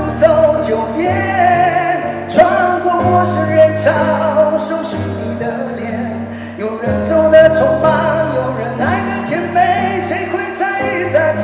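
A male singer sings a song live into a handheld microphone, holding long notes over instrumental accompaniment with steady bass notes that change in steps.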